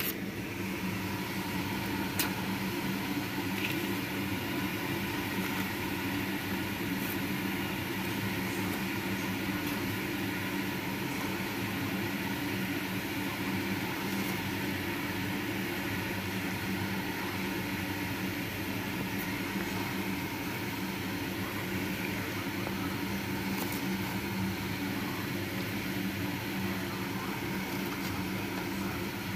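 A steady mechanical hum that stays level throughout, with a few faint ticks.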